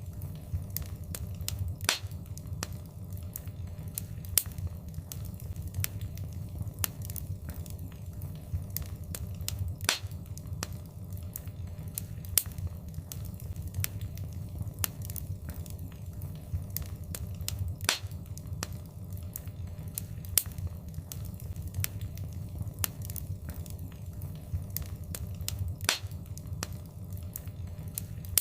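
Wood fire crackling in a fireplace: frequent small snaps and a few louder pops over a steady low rumble of the flames.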